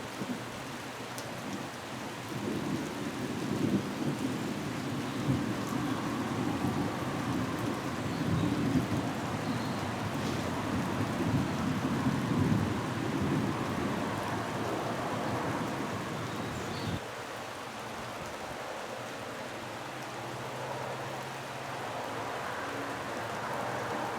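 Rain falling steadily with a long rolling rumble of thunder that swells and fades over about fifteen seconds, then cuts off suddenly, leaving just the rain.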